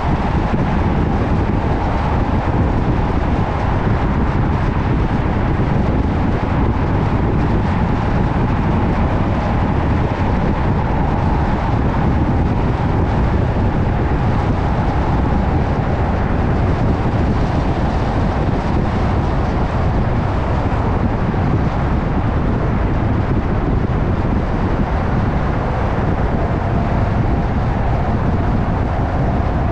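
Steady road and engine noise of a car driving at an even speed, with a faint steady whine running through it.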